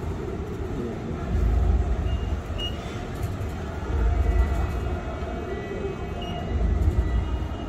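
Hyderabad Metro electric train running along the line, heard from inside the carriage: a steady rolling rumble that swells and eases every two to three seconds.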